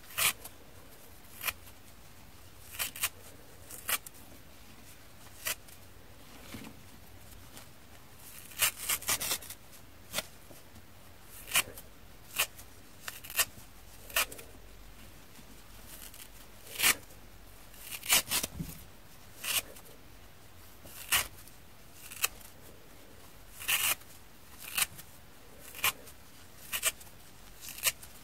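Abrasive scouring-pad layers of sponges being ripped apart by hand. Short, sharp tearing rips come at irregular intervals, about one a second, with a few quick runs of rips together.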